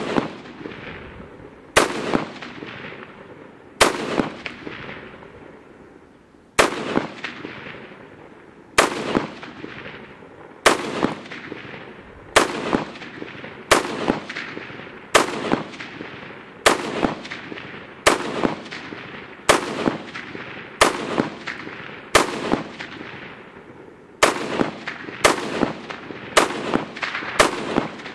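Smith & Wesson M&P15 AR-15 rifle in .223 fired semi-automatically in rapid succession, a shot every one to two seconds. Each sharp report trails off in a long echo.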